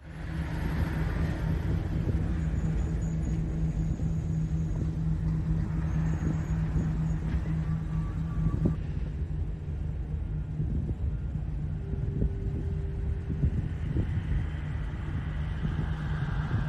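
Steady low rumble with a constant low hum under it. The higher hiss thins out about eight and a half seconds in.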